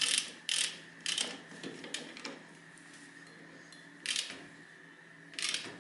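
Socket ratchet worked in several short, unevenly spaced strokes, each a brief burst of clicks, tightening the upper bolt of a front brake caliper. The last two strokes come farther apart.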